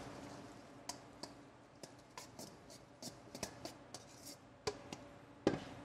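Metal tongs clicking and scraping lightly against a stainless steel mixing bowl while tossing dressed kale and spinach leaves. The faint taps come irregularly, with a slightly louder knock near the end.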